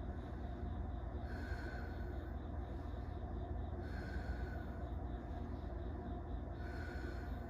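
A person breathing slowly and evenly while sitting in cold water, about one breath every two and a half seconds, each with a faint whistle, over a steady low rumble.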